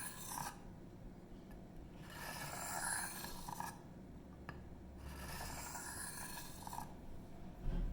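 154CM steel knife blade drawn across a diamond sharpening stone in slow, light swipes, each a second or two long and a few seconds apart, knocking the burr off the freshly sharpened edge.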